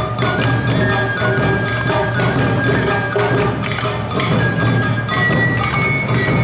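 Live Awa Odori narimono band playing: a fast, even beat of metallic strikes on the hand-held kane gong with drums, and a high shinobue flute melody over them.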